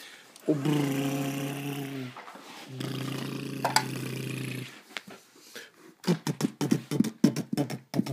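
Battery-powered toy garbage truck playing its electronic engine sound through a small speaker: a buzzing, growl-like tone that sounds twice, for about a second and a half and then about two seconds after a short break. Near the end comes a fast, uneven run of plastic clicks and knocks.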